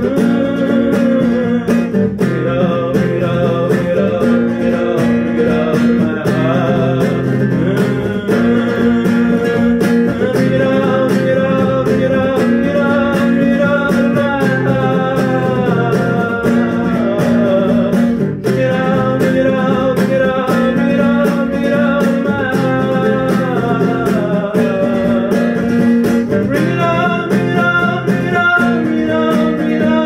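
A man singing while playing an acoustic guitar, a solo live song performance with a steady strummed accompaniment under a flowing vocal melody.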